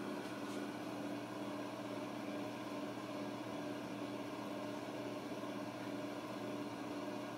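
A steady mechanical hum with a faint hiss, even and unchanging throughout.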